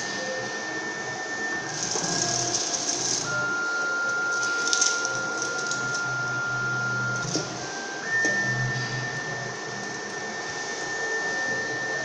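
Rotary coaxial cable stripping machine running: steady motor whines that step to a new pitch every few seconds as the knife head turns and travels along the cable, with short bursts of hiss now and then.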